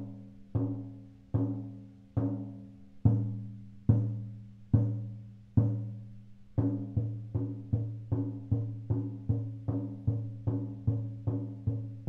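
20-inch oval goat-skin shaman frame drum struck with a soft-headed beater, each stroke a deep ringing boom that dies away. The strokes come a little more than one a second, then from about halfway through quicken to two or three a second.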